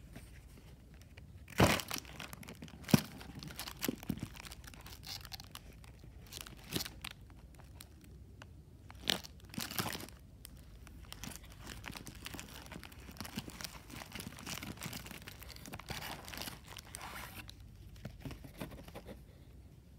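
Plastic packaging crinkling and crackling as it is handled, in irregular bursts with sharp cracks, the loudest about two and three seconds in.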